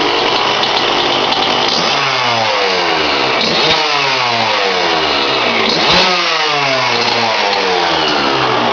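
The 125 cc single-cylinder two-stroke engine of a 2003 Suzuki RM125 dirt bike runs, with its throttle blipped three times. Each blip sends the revs up sharply, and they then fall back toward idle. The owner says the freshly rebuilt engine is running a little rich.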